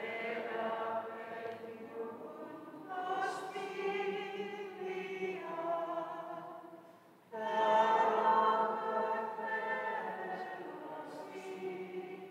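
A group of voices singing a slow hymn with long held notes, pausing briefly about seven seconds in before resuming louder. It is sung during Benediction of the Blessed Sacrament.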